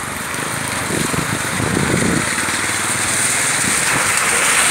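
Passing motor traffic on a wet road. A small motorcycle engine is heard about a second in, then a bus's engine and its tyres hissing on the wet asphalt grow louder as it draws close.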